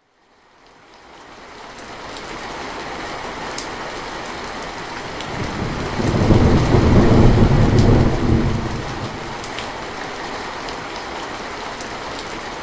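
Steady rain fading in from silence over the first two seconds, with scattered sharp raindrop ticks. A rumble of thunder swells and dies away between about five and nine seconds in.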